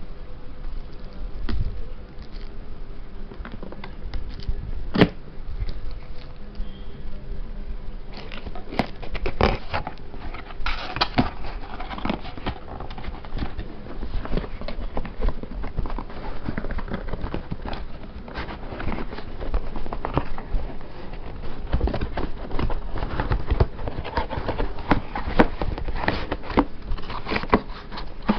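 Packaging being handled during unboxing: irregular rustling and crinkling with scattered clicks and taps, busier from about 8 seconds in.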